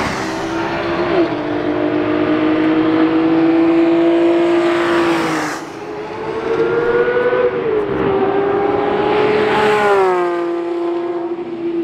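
Two sports cars pass close at full throttle, their high-revving engines holding a steady high pitch and then dropping sharply as each goes by, about five and a half seconds in and again about ten seconds in. The second is a 992-generation Porsche 911 GT3's naturally aspirated flat-six.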